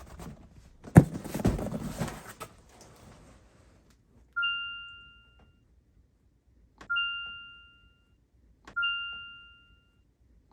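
A heavy thump about a second in, followed by a couple of seconds of rustling, then three identical single bell-like dings, each fading out over about a second.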